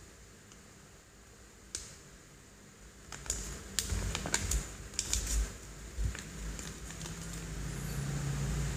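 A paper instruction sheet and clear plastic bags of toy bricks being handled, giving scattered crinkles and sharp clicks with soft low bumps, busiest in the middle.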